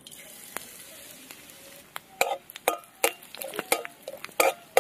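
Crushed mustard seeds and panch phoron sizzling in hot mustard oil in a metal kadai, a steady hiss for about two seconds. Then a spatula stirs them, with a run of sharp clicks and knocks against the pan.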